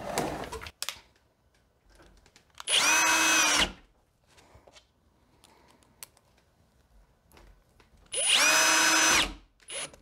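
Cordless drill driving two short screws into a doorknob mounting plate. It runs twice, about a second each time and several seconds apart, with a steady motor whine.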